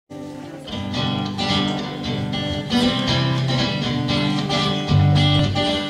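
A small band playing a song's instrumental intro: a strummed acoustic guitar with an electric guitar and electric bass, starting abruptly right at the beginning.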